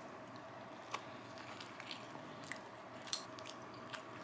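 Faint biting and chewing of a bagel sandwich with a chicken-breast patty and lettuce, with a few small sharp crisp sounds, over a faint steady hum.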